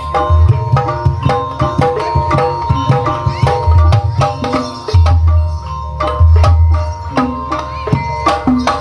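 Instrumental gamelan music accompanying an ebeg dance: struck metal keyed instruments ringing out a repeating melody over quick hand-drum (kendang) strokes, with deep low booms every second or two.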